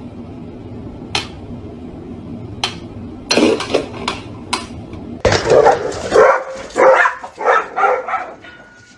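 A dog barking in a run of short loud barks, after a few sharp clicks or knocks.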